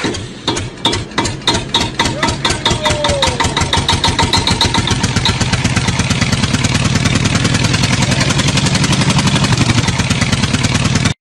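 An engine starting and running: separate firing beats, about two a second at first, quicken over the first few seconds into a fast, steady running beat.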